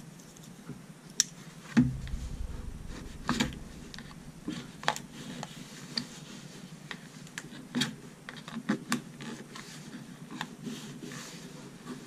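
Knife blade cutting and prying at a stiff plastic blister pack, with scattered clicks, scrapes and crackles of the plastic and card, and a thump about two seconds in.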